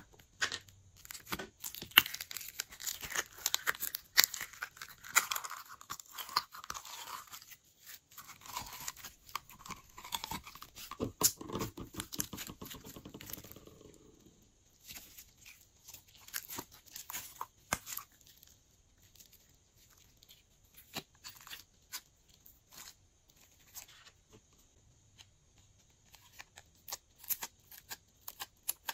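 Glossy slime being squished and mixed by hand, giving sticky crackles and pops. They are dense for the first half, then thin out to scattered clicks.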